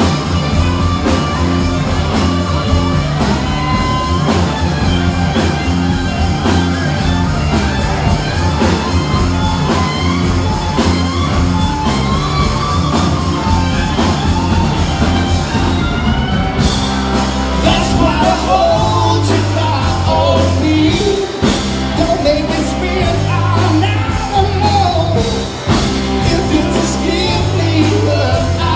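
Live rock band playing with a lead singer, heard in a large room. About sixteen seconds in the cymbals drop out for a moment and the band comes back in with heavier bass notes.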